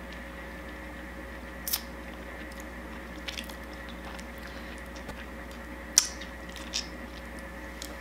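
Wet mouth sounds of people biting and sucking on lemon wedges: a few short, separate squelches and smacks, the loudest about six seconds in, over a steady faint hum.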